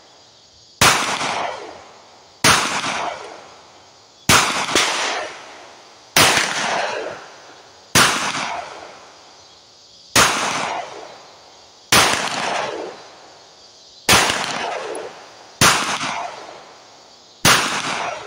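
Ruger MAX-9 Pro 9mm pistol firing hot 124-grain rounds in slow, deliberate shots, about one every two seconds, ten or eleven in all, with two shots close together about four seconds in. Each report is sharp and rings off with a short echo.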